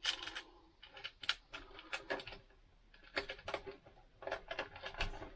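Irregular rustling and clicking of electrical wire being handled and fed into place, in uneven clusters of short crackles.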